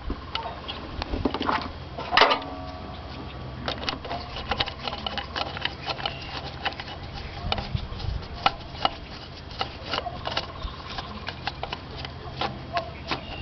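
Hand tool turning in the screws that hold a new ignition coil in a Honda Civic's distributor: many small, irregular metallic clicks, with one louder knock about two seconds in.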